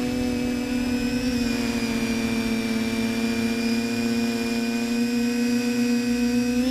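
TBS Discovery quadcopter's electric motors and propellers whirring in flight, a steady multi-pitched whine heard from the onboard GoPro.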